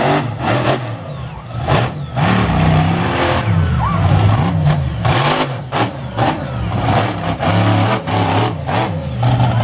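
Monster truck engine revving hard, its pitch rising and falling over and over as the throttle is worked.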